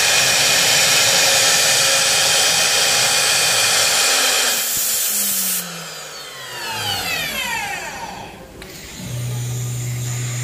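Three-head CNC router running with its spindles and motors whining steadily. About halfway there is a second of brighter hiss, then the spindles wind down with falling whines. A low steady hum comes in near the end.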